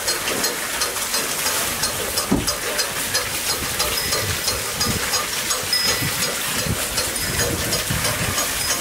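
Ox-driven wooden Persian wheel (rahat) turning over a well: a steady rush of water spilling from its chain of pots, over rapid, even clacking of the wheel and pot chain, with a few soft knocks.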